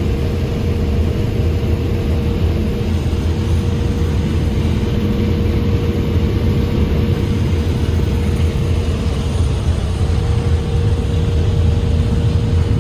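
An engine running steadily at a constant speed: a loud, even low rumble with a steady hum above it.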